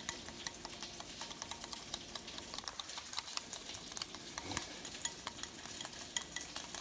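Small wire whisk stirring honey mustard dressing in a glass bowl, clicking rapidly and irregularly against the glass.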